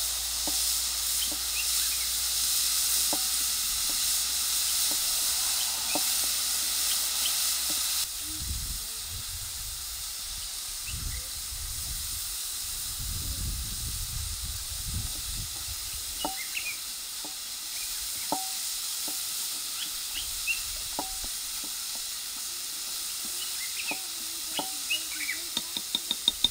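Chopped onions and green peppers sizzling in a black frying pan over a fire, with a wooden fork scraping the pan and a quick run of taps near the end. For the first third there is a louder, steady high hiss of the open bush, which changes abruptly to the quieter frying.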